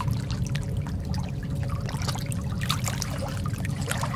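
Water trickling, with many small irregular drips and splashes over a steady low rumble.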